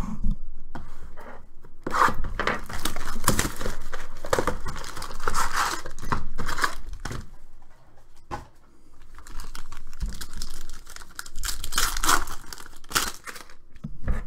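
Tearing and crinkling as a sealed Panini Contenders basketball card box is ripped open and its packs are pulled out, then a foil card pack being torn open. The ripping comes in irregular spells, with a short lull about eight seconds in.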